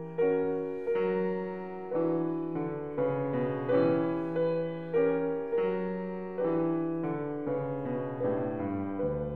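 Slow piano music, chords struck about once a second and left to die away.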